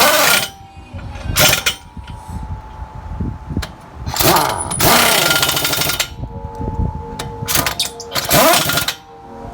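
Pneumatic impact wrench hammering on a truck's rear-wheel lug nuts in several short bursts, the longest a rapid rattle about four seconds in, lasting over a second.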